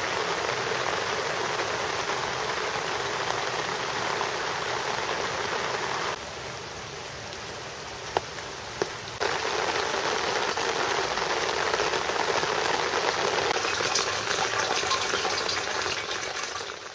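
Steady rain, with rainwater running off a metal roof into the gutters and downspouts that feed rain barrels. The sound is a continuous hiss of falling and splashing water. About six seconds in it drops quieter for a few seconds, with two sharp single taps, then grows louder again.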